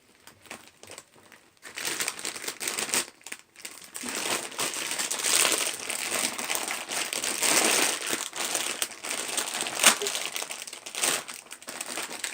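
Plastic snack bag crinkling as it is handled and opened. The crinkling starts about two seconds in and carries on, with one sharp crackle near the end.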